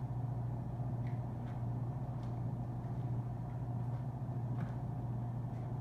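Steady low mechanical hum, with a few faint clicks of a knife working the tenderloin out of a pork loin.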